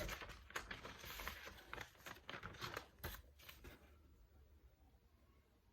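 Faint rustling and clicking of a small box being opened and handled, dying down after about three and a half seconds.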